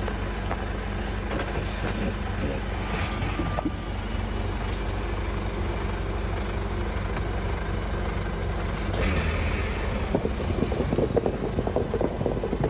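Expedition truck's engine running steadily with snow chains fitted to its wheels, then pulling away over snow. A brief hiss comes about nine seconds in, and from about ten seconds the chains clatter and crunch on the packed snow as the wheels turn.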